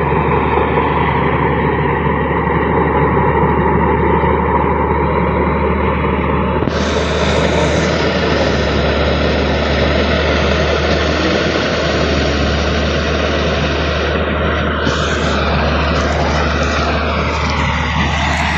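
New Holland combine harvester running, a loud steady machine drone with a deep hum underneath. About seven seconds in the noise turns brighter and hissier, and near the end some tones slide lower.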